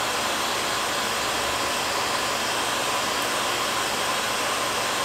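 Handheld electric heat gun blowing steadily, its fan and hot air shrinking heat-shrink tubing over a crimped wire splice.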